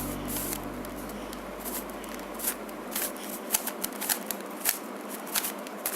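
Plastic Rubik's cube being twisted by hand: irregular sharp clicks and rattles as its layers turn.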